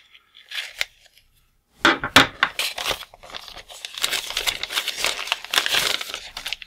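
Thin clear plastic bag crinkling and rustling as it is pulled open and paper sheets are slid out of it. It starts about two seconds in, after a near-quiet moment with a few faint ticks.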